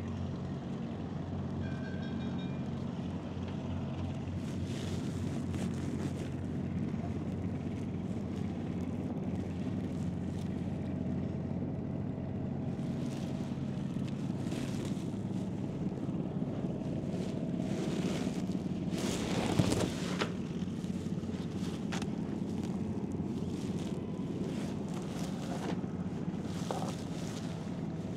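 A barge's engine running steadily with a low hum, with one brief clatter about two-thirds of the way through.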